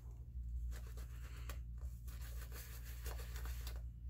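Shaving brush working lather over a shaved scalp: soft, scratchy swishing strokes over a low steady hum.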